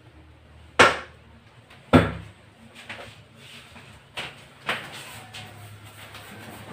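A paint roller on a long extension pole knocking against the wall: two sharp knocks about a second apart, then a few softer taps as the roller works along the top of the wall.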